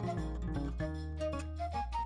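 Background music: a melody of held notes over a steady low bass.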